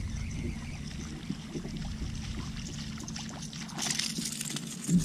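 Water splashing as a hooked largemouth bass thrashes at the surface beside a kayak, loudest about four seconds in, over a steady low rumble with small clicks.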